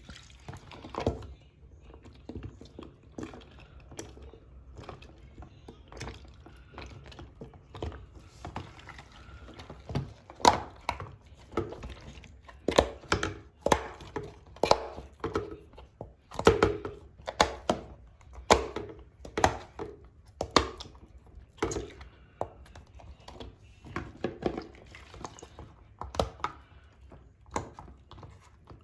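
Fidget toys such as pop-its being handled and pressed in water: an irregular string of sharp pops and thunks, about one or two a second, busiest in the middle stretch.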